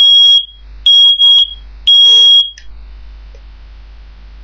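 Smoke alarm sounding during a test: three loud, high-pitched beeps about a second apart, each about half a second long, then it stops.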